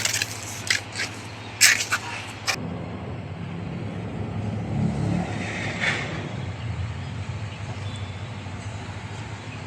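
Several sharp clicks and knocks, then a vehicle engine starts a steady low running hum about two and a half seconds in, with a brief hiss partway through.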